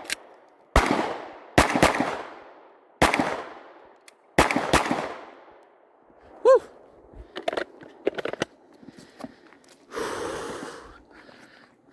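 Firearm gunshots fired singly, about seven in the first five seconds, each followed by a long echo. After that come scattered faint clicks and knocks.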